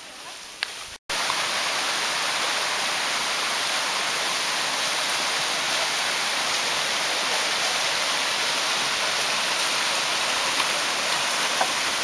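Steady rush of a mountain stream's flowing water, cutting in abruptly about a second in after a brief gap.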